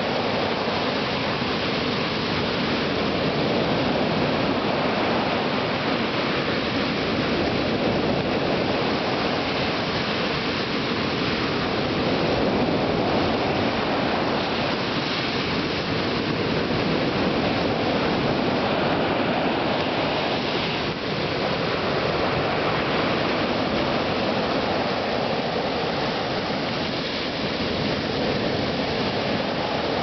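Sea surf breaking and washing up a beach: a loud, steady rush of churning water that swells and eases gently with the waves.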